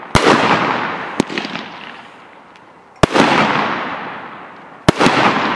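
Mars Pyrotechnics Carpet Bomber 25-shot 1.3G firework cake firing: shells burst with sharp bangs just after the start, about three seconds in, and twice in quick succession near the end, with a smaller pop about a second in. Each burst is followed by a dense crackling that fades over about two seconds.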